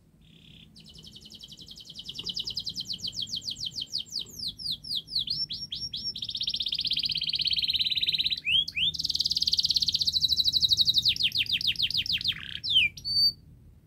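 Domestic canary singing one long, high song phrase: fast trills of repeated notes, a run of sweeping slurred notes, a steady buzzy roll, then a loud fast trill that stops about a second before the end.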